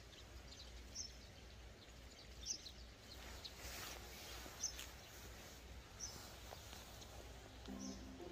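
Faint, scattered high chirps of small birds, one every second or so, over quiet outdoor background hiss. Soft music comes in near the end.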